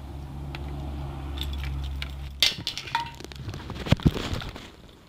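A steady low hum that cuts off about halfway through, followed by sharp clicks, metallic clinks and two knocks, as of things being handled on a parked motorcycle.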